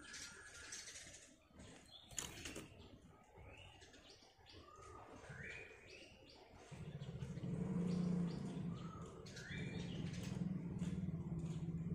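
Kutilang emas (ruby-throated bulbul) giving short rising whistled chirps, with wing flutters. A little over halfway through, a louder low buzzing drone with a fast pulse sets in and continues to the end, louder than the bird.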